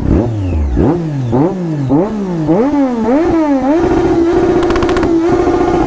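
Triumph Daytona 675 inline-three sportbike engine revved while standing still: a run of quick throttle blips, each one higher than the last, then the revs held steady and high for about two seconds near the end.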